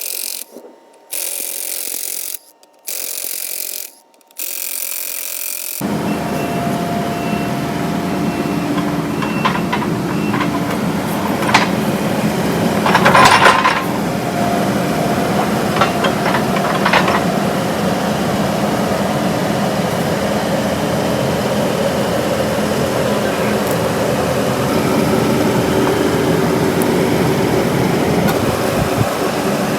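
A few short bursts of thin hiss with gaps between them. About six seconds in, a motor vehicle engine starts running steadily and keeps going, with a few metallic clanks around the middle.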